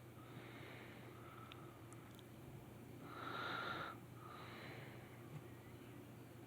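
A person breathing slowly and softly close to the microphone, one louder breath lasting about a second near the middle, over a faint steady hum.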